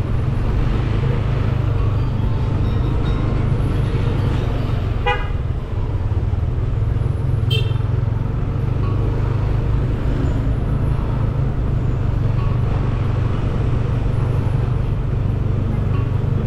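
Street traffic: a steady low rumble of engines and tyres, with a short horn beep about five seconds in and a higher, shorter horn toot about two and a half seconds later.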